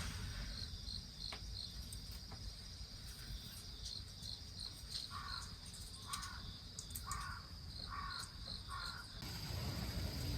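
A crow cawing five times, about once a second, over short runs of high insect-like chirps and a steady low outdoor rumble.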